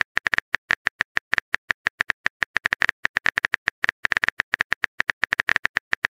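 Phone keyboard typing sound effect: a fast, uneven run of short, bright clicks, about nine a second, as a text message is typed out.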